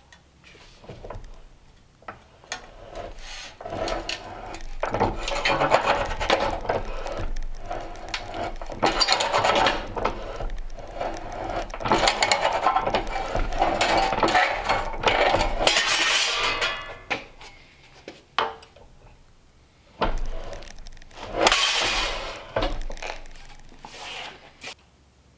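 Hand-lever bench shear cutting 18-gauge sheet steel, cut after cut, with the sheet scraping and clanking against the blades and the bench. A long spell of cutting, a pause, then a shorter spell a few seconds before the end.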